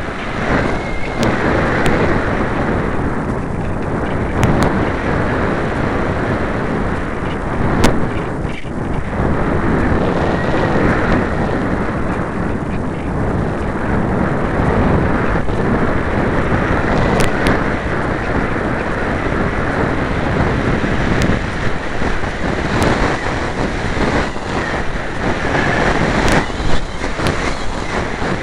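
Airflow buffeting the microphone of a camera riding on a light thermal glider in flight: a loud, steady rush of wind noise that surges and eases in gusts, with a few faint ticks.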